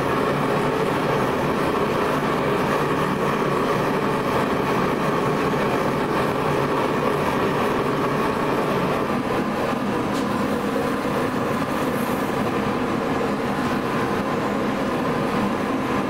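Gas forge burner running steadily while a blade heats in it for hardening.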